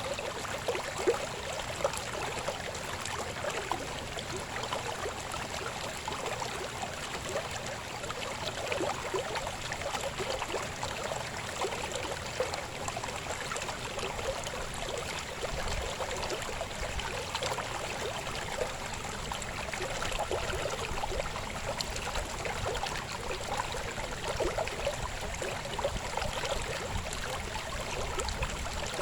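Babbling river flowing steadily: a continuous rush of water with constant small splashes and gurgles.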